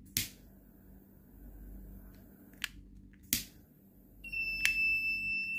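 Small electronic buzzer on a BC547 transistor circuit sounding a steady high-pitched tone, starting about four seconds in as heat from the hot tool sets the circuit off. Before it, a few sharp clicks.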